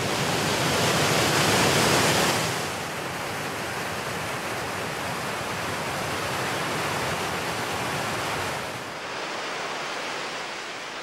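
River rapids rushing, a steady roar of whitewater that is loudest for the first two seconds. Near the end it drops to a lower, steady rush.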